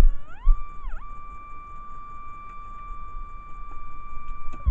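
Fisher TW-6 two-box metal detector's audio tone gliding up in pitch, dipping briefly about a second in, then holding one steady high tone before falling away at the end, its signal for metal. A few low thumps of handling at the start.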